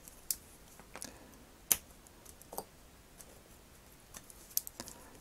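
Metal tweezers clicking and tapping faintly and irregularly against a small hard plastic action figure while elastic ends are tucked into its hip. The sharpest click comes a little under two seconds in.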